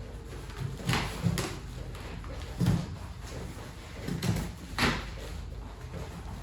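About five knocks and thumps of a new refrigerator being handled, its doors and drawers opened and shut.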